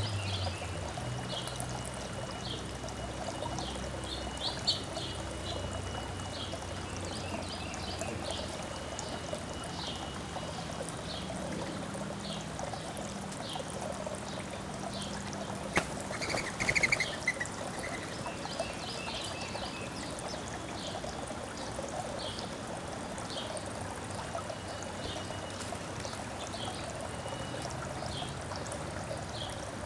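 Water trickling and pouring steadily while small birds chirp in short repeated calls throughout, with a louder flurry of calls about two-thirds of the way through.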